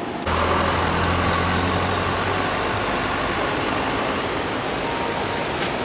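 A motorbike engine idling with a low hum that fades after the first two or three seconds, under a steady rushing noise.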